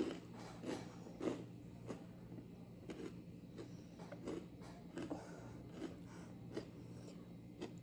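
Soft, irregular wet mouth clicks and smacks of someone chewing a mouthful of dumpling, a few per second.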